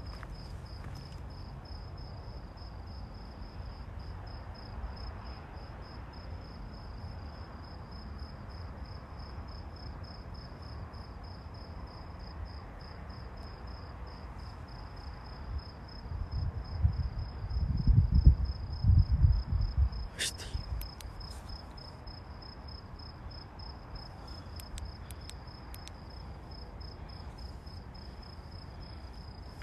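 A cricket chirping in a steady, evenly pulsed high trill. Around the middle, a few seconds of low rumbling and thumps on the microphone are the loudest thing, followed by a sharp click.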